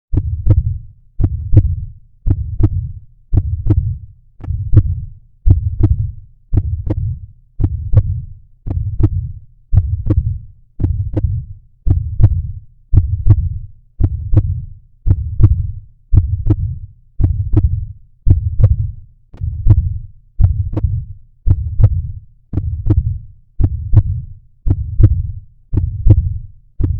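Heartbeat sound effect: a steady, even run of low thumps at about one beat a second.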